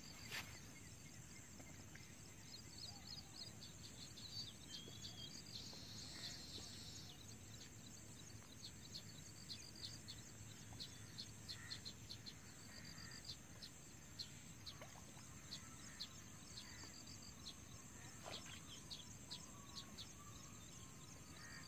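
Faint open-air ambience with small birds chirping in many short, high, repeated notes, over a steady high-pitched tone.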